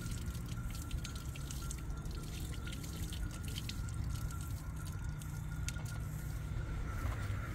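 Water trickling from the tap of a caged plastic water tank over hands being washed, with many small drips and splashes, over a steady low rumble.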